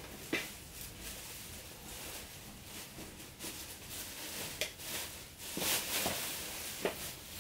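Rustling of clothes being handled, with a few light clicks and knocks.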